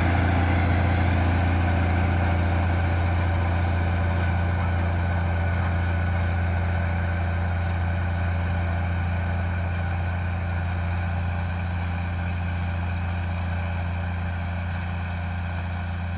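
Ursus 1634 tractor's diesel engine running steadily under load while it pulls a disc harrow, a low even drone that slowly fades as the tractor moves away.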